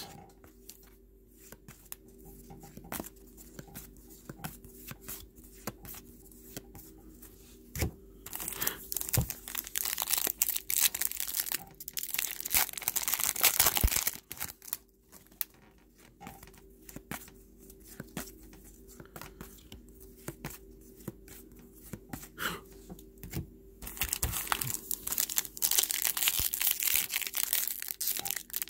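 Trading card pack's plastic wrapper crinkled and torn open by hand, in two long stretches of crackling, one about a third of the way in and one near the end, with soft clicks of cards being handled in the quieter stretches between.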